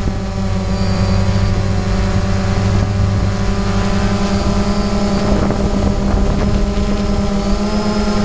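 DJI Phantom quadcopter's motors and propellers buzzing steadily in flight, heard close up through the camera on the drone: a low hum with a stack of higher tones above it.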